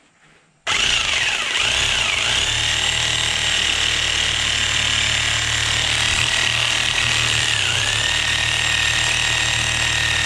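Corded jigsaw switched on about a second in and running steadily as it cuts through a piece of wood clamped in a vise. Its pitch dips briefly twice under load.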